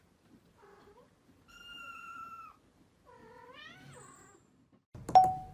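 Kittens meowing: three faint, high-pitched meows, the first short, the second long and steady, the third rising then falling. Near the end a sudden, much louder ringing note cuts in.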